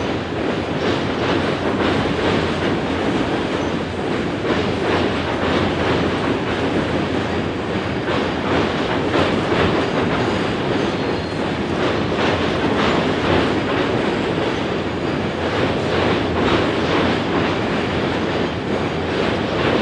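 Loaded freight cars of a long mixed freight train rolling past: a steady rumble of steel wheels on rail, with repeated clicking and clacking as the wheels pass over the rail joints.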